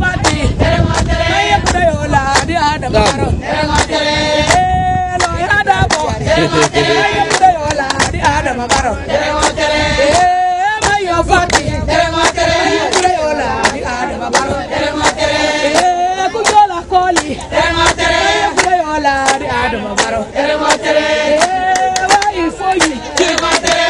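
A group of men and women singing together in chorus, with rhythmic percussive beats throughout.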